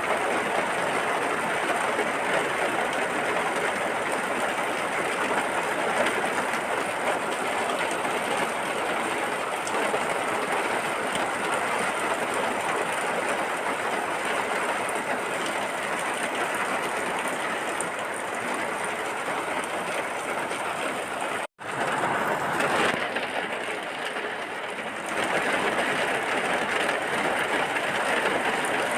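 Steady, dense rain falling as an even hiss. About two-thirds of the way through it cuts out for a split second, then returns slightly quieter for a couple of seconds before regaining its full level.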